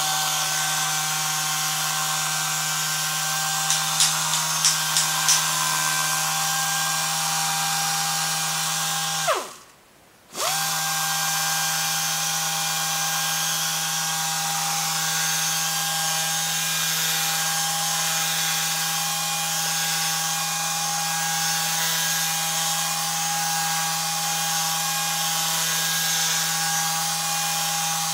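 DR-226N pneumatic dual-action sander running at speed with a steady whine and air hiss. About nine seconds in it is shut off and spins down with a falling whine; about a second later it starts up again and runs steadily. A few light clicks sound about four to five seconds in.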